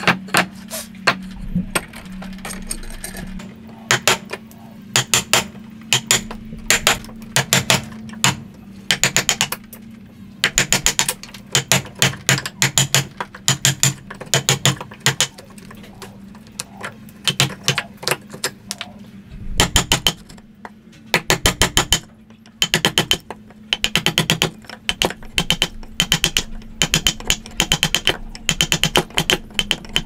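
Wood chisel struck with a mallet while cutting a joint in timber: quick runs of sharp taps, about five a second, with short pauses between runs. A steady low hum sits underneath.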